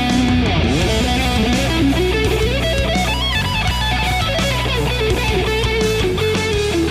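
Gusta GST-05 Strat-style electric guitar playing a lead melody with slides and string bends, over a steady backing of bass and drums.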